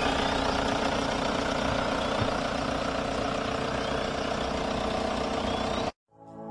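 VW Polo 1.9 SDI's naturally aspirated four-cylinder diesel engine idling steadily, cutting off suddenly near the end.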